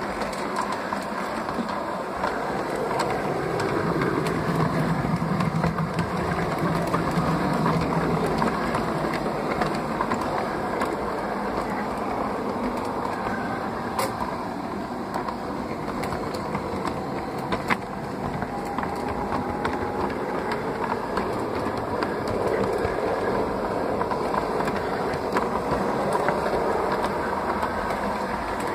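LGB G-scale model train with a rack-and-pinion electric locomotive running along its track, heard from on board: a steady motor and wheel whirr with small clicks over the rail joints and a couple of sharper clicks.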